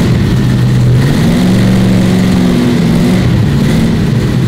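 Chrysler 340 V8 in a Plymouth Duster running through newly fitted mufflers tack-welded to the headers, in place of the open headers it had before. It is blipped up about a second in, held briefly, and then settles back toward idle near three seconds. It is much better, a really good sound, heard inside the garage.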